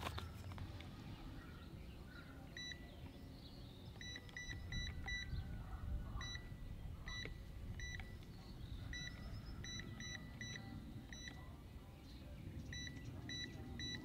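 Mighty Mule wireless gate keypad giving a short high beep at each key press as a code is keyed in, about twenty beeps in all, some alone and some in quick runs. This is the programming sequence for adding a new entry code with the 02 function.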